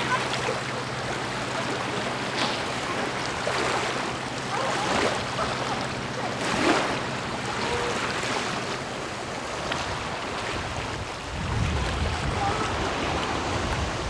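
Sea waves washing onto a beach in repeated surges. Under them a low, steady engine hum runs until about ten seconds in. Near the end, wind buffets the microphone in low rumbling gusts.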